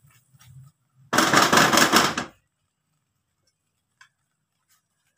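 A spoon scraping thick semolina and coconut halwa around an aluminium pan: soft stirring at first, then one loud scrape lasting a little over a second about a second in.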